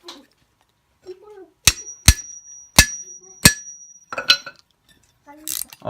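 Four sharp metal strikes within about two seconds on a steel brake rotor and hub, the rotor ringing on in a high tone between and after them, as the tight rotor-to-hub bolts are worked loose.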